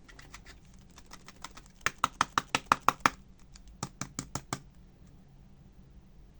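A quick run of sharp clicking taps, about seven a second, from hands handling a small hard object. A short burst comes about two seconds in, then a brief pause and a second, shorter burst.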